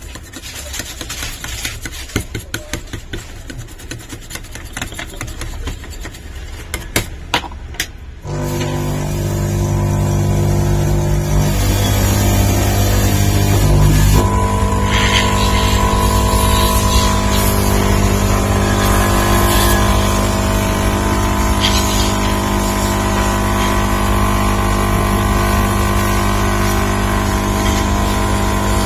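A few light clicks and scrapes of handling, then, about eight seconds in, a hot air rework gun's blower switches on suddenly and runs steadily with a whirring hum and hiss of air. It is heating the set-top box's CPU chip to reflow it; a higher tone joins in a few seconds later.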